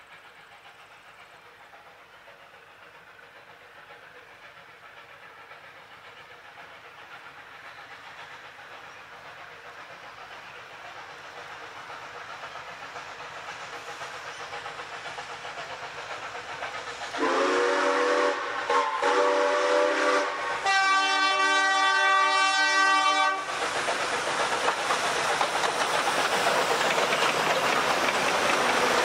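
A steam locomotive hauling a passenger train approaches, its running noise growing steadily louder. About two-thirds of the way through it sounds its steam whistle in several blasts, the last one the highest and longest. It then passes close by with loud running and rail noise.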